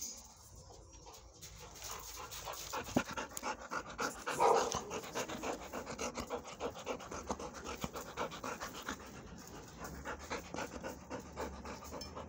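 Dog panting close to the microphone, quick even breaths about three or four a second, starting about two seconds in, with one louder breath midway.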